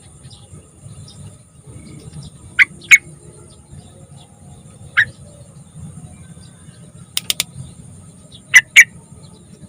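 Yellow-vented bulbul (trucukan) giving short, sharp call notes, mostly in quick pairs: two notes, then a single one, a few fast ticks, then two more.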